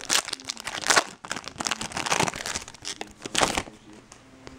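Foil wrapper of a baseball card pack being opened and crinkled in the hands: a run of loud crackling rustles that dies down for the last second.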